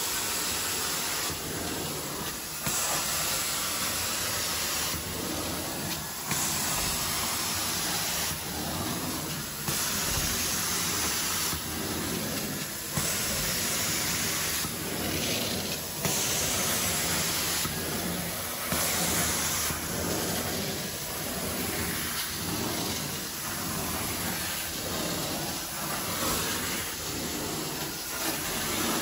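Carpet-cleaning extraction wand running: a steady vacuum rush, with the spray hiss cutting in and out every second or two as the wand is stroked across the carpet.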